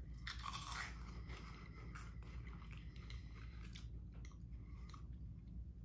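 Someone chewing crunchy cheese puff balls, with a few faint, scattered crunches.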